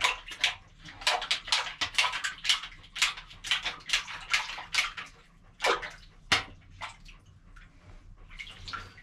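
Water splashing and dripping in a cistern as hands work down in it, a run of irregular splashes that thin out after about halfway, with two sharper knocks a little past the middle.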